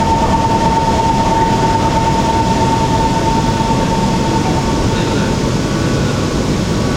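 Shenzhen Metro Line 14 train running at speed: a steady rumbling ride noise with a high steady whine that fades out about five seconds in.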